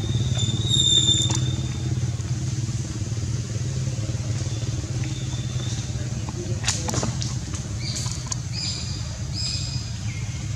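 Steady low motor drone, with a few short high-pitched chirps about a second in and again near the end, and a couple of sharp clicks in the middle.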